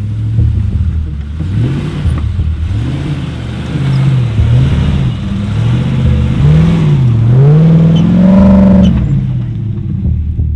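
Engine of a 4x4 revving under load in snow, its pitch rising and falling several times and climbing highest near the end, as the driver feeds it more throttle.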